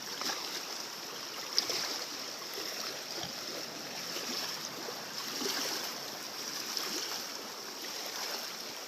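Steady rush of flowing river water, with one sharp click about one and a half seconds in.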